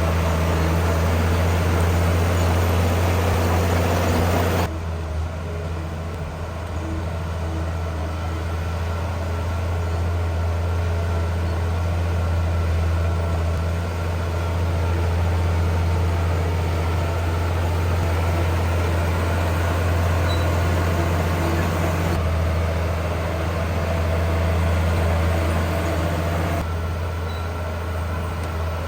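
Heavy diesel earthmoving machinery, bulldozer and dump trucks, running with a steady low engine drone. The sound shifts abruptly about five seconds in and again near 22 and 27 seconds.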